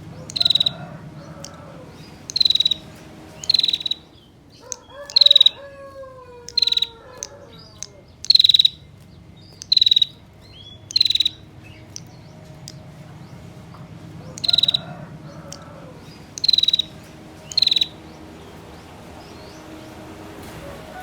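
Female prinia (prenjak) giving its 'ngetir' call: short, dry, rapid trills, each under half a second, repeated about a dozen times at irregular intervals with a pause around the middle. A separate lower call with several falling tones sounds once between the trills early on.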